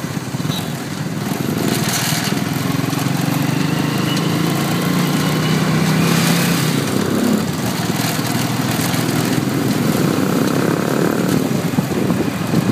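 Vehicle engines idling in stopped street traffic, a steady engine hum whose note shifts a little about seven seconds in.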